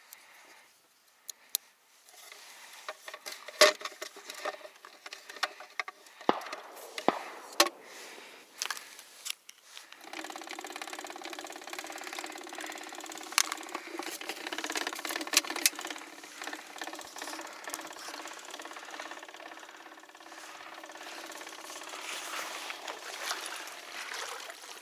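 Clicks and knocks of a battery being fitted into a motorized spinning-wing duck decoy, then about ten seconds in the decoy's small electric motor starts and runs with a steady whirring hum as its wings spin.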